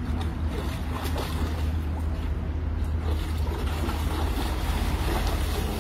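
Water splashing and sloshing as Belgian Malinois dogs wade and lunge through a shallow pool, over a steady low rumble.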